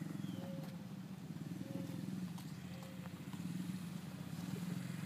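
Small youth ATV's engine running steadily, a low buzz that swells and eases a little.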